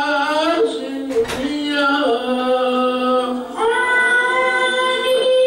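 Mawlid devotional chant sung with long, drawn-out held notes that bend slowly in pitch. There is a brief knock about a second in.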